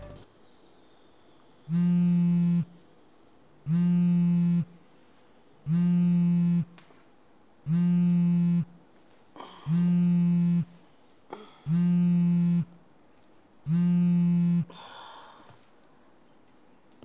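An alarm buzzing as a wake-up call: seven flat, low electric buzzes, each about a second long, one every two seconds, then it stops.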